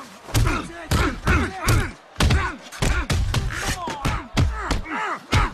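A rapid flurry of heavy bare-knuckle punches from a film fight scene: about a dozen hard thuds, a few tenths of a second apart, mixed with short grunts from the fighters.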